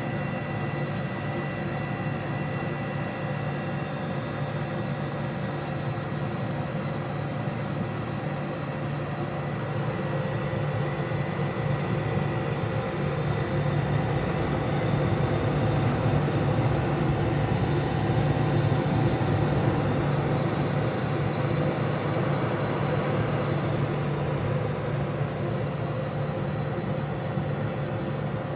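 Vintage Kenmore dehumidifier running: its compressor and fan make a steady hum with several constant tones over an airy rush. It grows somewhat louder midway and eases back near the end.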